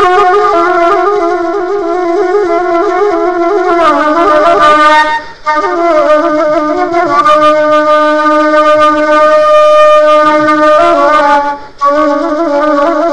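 Background music: a single wind instrument playing a slow melody with held, wavering notes and glides between them, pausing briefly twice.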